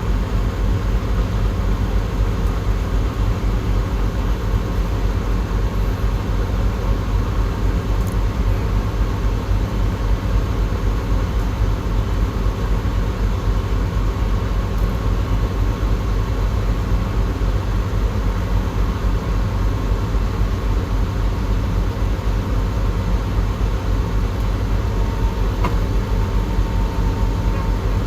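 Diesel engine of a Komatsu D68ESS crawler bulldozer running steadily as a continuous low drone, with a faint high whine above it.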